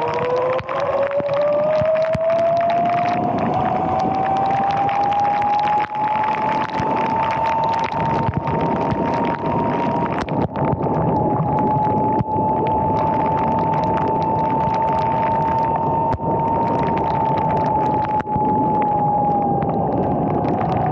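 Sur-Ron electric dirt bike's motor and chain primary drive whining as it rides. The whine rises in pitch over the first several seconds as the bike gathers speed, then holds steady, easing slightly near the end. Tyre noise on the wet road and wind run underneath.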